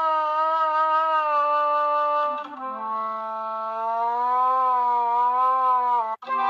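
KAiKU music glove sounding a sustained synthesized wind-instrument tone, its pitch wavering gently as the glove's gyroscope bends it. About two and a half seconds in it drops to a lower held note, with a brief break near the end.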